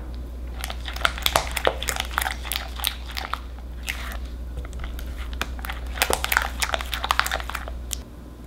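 Spatula stirring thick cream cheese batter in a glass bowl to work in beaten egg: quick, irregular, wet sticky strokes, in two busy spells with a lighter patch between them.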